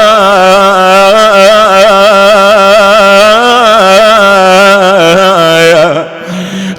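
A man's voice chanting a Shia elegy (nāʿī lament) in one long, ornamented, wavering melismatic line that stretches out the words of the verse. The line tails off about six seconds in with a short breath break.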